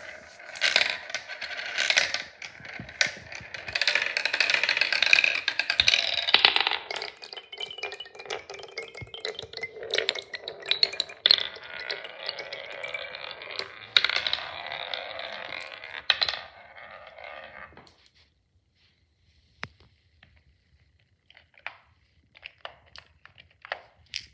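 Glass marbles rolling through a plastic and wooden marble run: a steady rolling rumble with many clinks and clacks as they spin around the funnels and drop through the track. It dies away after about seventeen seconds, leaving a few scattered clicks.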